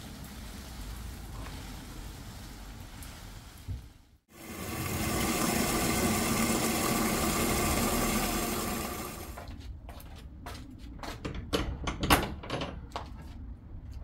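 Plants being watered: water hissing out in a steady spray for about five seconds after a brief break, then a run of short, uneven splashes.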